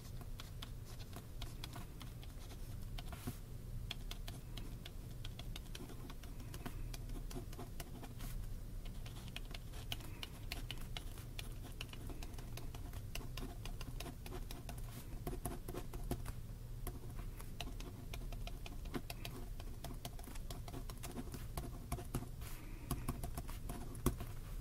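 Pen writing by hand on notebook paper: a dense, irregular run of light scratches and ticks from the pen tip, over a steady low hum.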